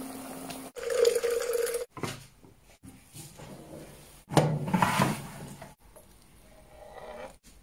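Mulled wine bubbling at a simmer in a pot, among short kitchen clips that cut in and out every second or so. The loudest stretches come about a second in and just past four seconds.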